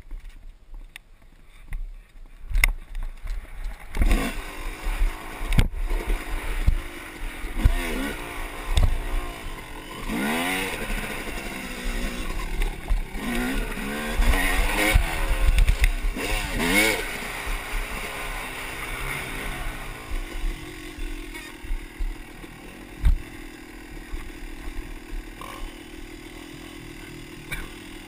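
Yamaha motocross bike engine heard from an on-bike camera, revving up and down over and over as the rider accelerates and shifts along a dirt trail, with thumps and wind buffeting on the microphone. Near the end it settles to a steadier, quieter note.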